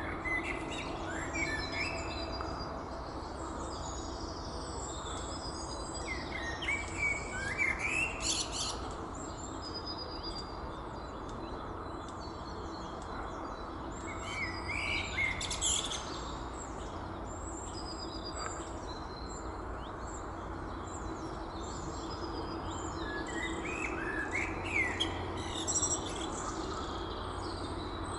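Male Eurasian blackbird singing: three separate song phrases several seconds apart, each climbing into a high twitter, over a steady low background hum.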